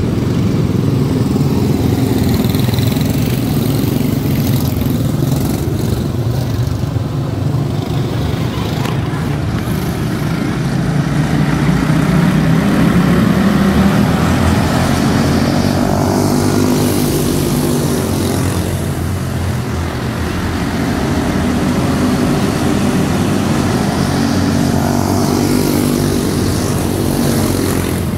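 A pack of quarter midget race cars running on a dirt oval, their small single-cylinder Briggs & Stratton Animal engines buzzing together, rising and falling in pitch as the cars pass, loudest about halfway through.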